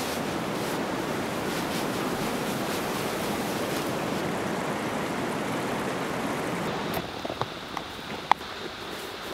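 Steady wind noise rushing across the microphone. About seven seconds in it eases, and a few sharp clicks are heard, the loudest a little past eight seconds.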